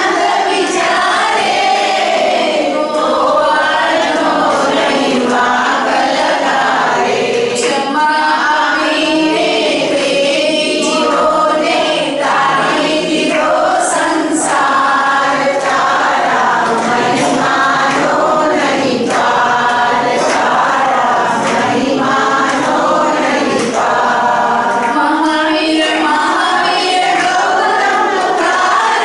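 A congregation singing a Jain devotional song together, led by a woman on a microphone.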